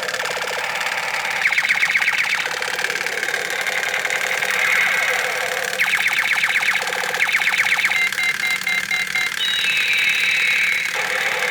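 Plastic AK968 toy gun's electronic sound chip playing its shooting and laser effects: several bursts of fast rattling machine-gun fire, then beeping tones and a falling laser sweep near the end.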